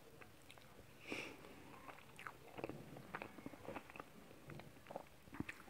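Faint, close mouth sounds of a person chewing a spoonful of soft chocolate cake with melted ice cream: scattered small wet clicks and smacks.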